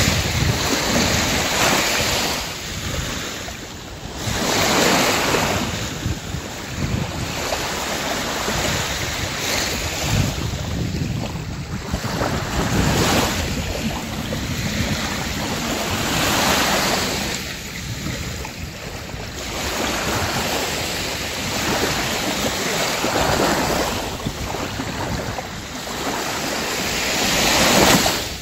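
Small sea waves washing up a sandy beach, the surf swelling and fading every few seconds, loudest just before the end.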